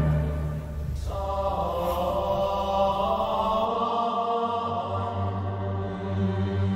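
Background music: a choir of men's voices singing Gregorian chant in long held notes. About a second in, it takes over from the end of a louder orchestral passage.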